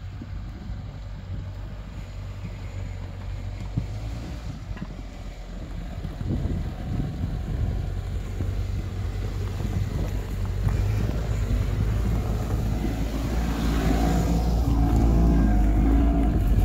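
Quad bike (ATV) engine driving through snow and bog toward the microphone, growing steadily louder as it comes close, with its engine note loudest as it passes right by near the end.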